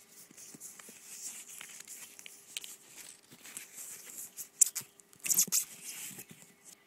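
Camera packaging rustling and crinkling as the camera is unwrapped and taken out of its box, with a sharp crack about two-thirds of the way through and a louder run of crinkling just after.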